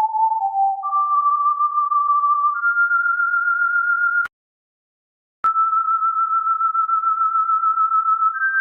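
A single pure tone with a fast wobble, held near 1 kHz and stepping up in pitch about a second in and again partway through. It cuts off with a click about four seconds in and comes back with another click a second later.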